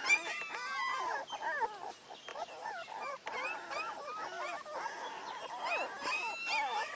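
A litter of young puppies whimpering and squeaking: many short, high, overlapping cries that rise and fall in pitch, going on without a break.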